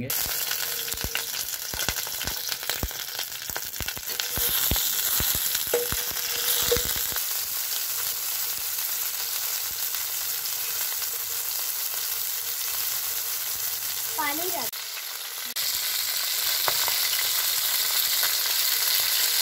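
Parboiled fish pieces frying in hot oil in a pan: a steady sizzle, with sharp pops and crackles over the first several seconds as the pieces go into the oil.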